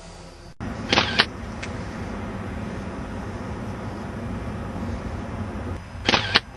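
Steady low outdoor background rumble, like distant traffic, starting abruptly about half a second in. It is broken twice by a quick pair of sharp clicks, about a second in and again near the end.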